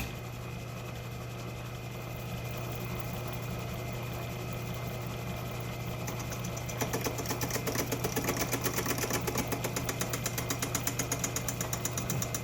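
Metal lathe switched on and running with a steady hum. About six and a half seconds in, the tool starts taper-turning the spacers on the mandrel and a rapid, even pulsing sets in.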